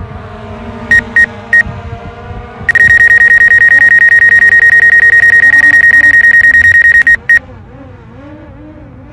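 A fast, loud train of electronic warning beeps, all at one high pitch, from the drone's remote controller. A few short bursts come in the first two seconds, then the beeping runs without a break for about four and a half seconds and stops. Under it, the small drone's propellers whine, rising and falling, with wind noise.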